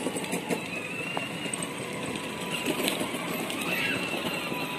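Battery-powered ride-on toy jeep driving, its small electric motors running and its plastic wheels rattling over paving blocks.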